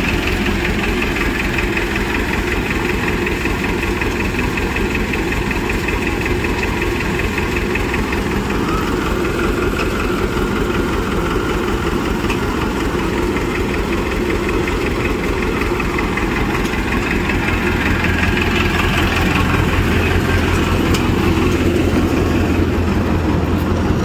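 Farmtrac 6055 four-cylinder tractor engine driving a Panesar TMC 800 tractor-mounted combine harvester, running steadily and getting a little louder in the last few seconds.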